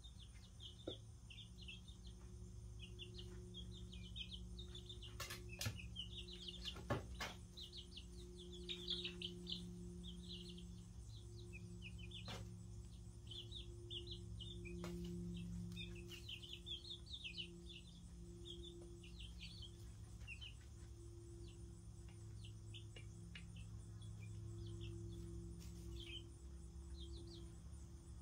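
Chicks a couple of weeks old peeping in short, high chirps that come in clusters, over a steady low hum, with a few sharp taps between about five and fifteen seconds in.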